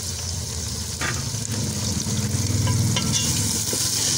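Chunks of raw meat sizzling in hot oil and onions in an aluminium pot, stirred with a wooden spoon that knocks against the pot a few times.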